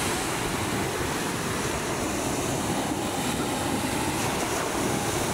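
Ocean waves breaking and washing up the beach: a steady rush of surf with no break.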